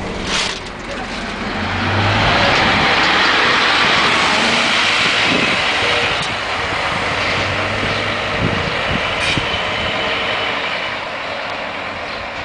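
Scania Omnilink single-deck bus pulling away and driving off, its engine noise rising about two seconds in and then slowly fading as it moves away. A short burst of noise comes about half a second in.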